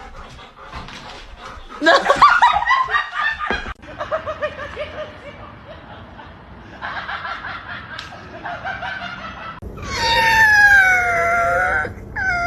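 A person laughing in rapid bursts, with a dog vocalizing, ending in one long, wavering, falling howl-like call near the end.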